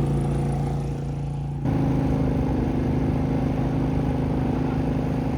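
Portable generator engine running steadily under a load of about 2,200 watts, a constant hum. The tone changes abruptly about a second and a half in, then holds steady.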